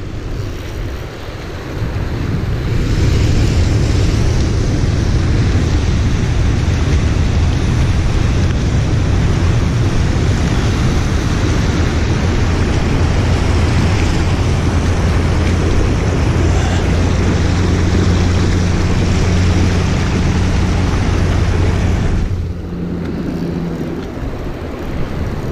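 Loud, steady rush of creek water spilling over a low dam and churning through rocky riffles, with a low rumble underneath; it eases a little near the end.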